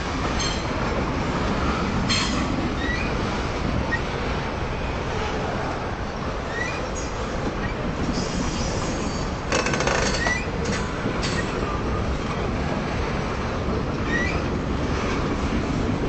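Freight train rolling past on steel rails: a steady rumble with short high wheel squeals throughout, a longer held squeal a little past halfway, and a cluster of clanks around ten seconds in.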